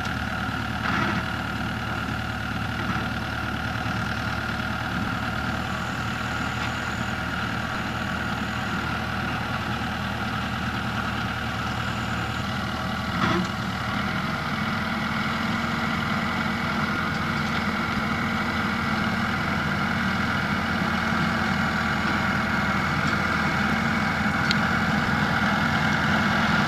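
Schiltrac transporter's engine running steadily while hauling a loader wagon, growing slowly louder as the vehicle comes closer, with a brief click about a second in and another about halfway through.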